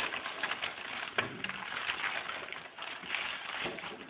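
Sheets of paper and card rustling and crackling as they are handled and shuffled, with a sharper tap about a second in.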